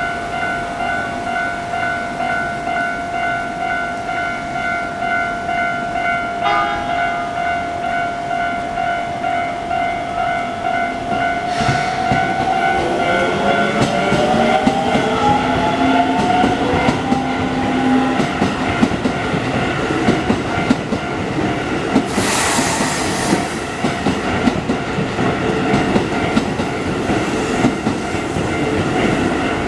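Japanese level-crossing warning alarm sounding its steady, repeating electronic ding while an electric train passes. From about twelve seconds in, the train's motors whine, rising in pitch, and the wheels clatter on the rails. A short burst of hiss comes about two thirds of the way through.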